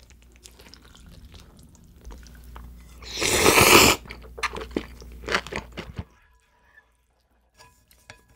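A person slurping up a mouthful of cold naengmyeon noodles in one loud, second-long slurp about three seconds in, followed by a couple of seconds of close-up chewing clicks and smacks. Soft clicks come before it as chopsticks gather the noodles, and it goes nearly quiet near the end.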